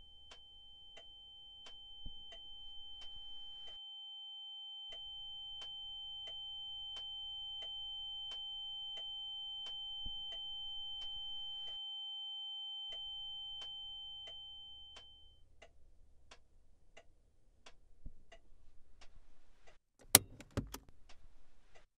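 Steady ticking, about two ticks a second, under a high, steady ringing tone that swells and then fades out about two-thirds of the way through. A sharp, loud knock comes near the end.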